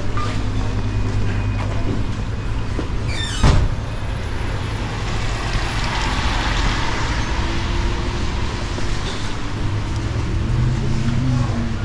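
Road traffic on the street outside the station: a steady low engine hum, with a vehicle's tyre noise swelling and fading mid-way. A short, loud hiss comes about three and a half seconds in.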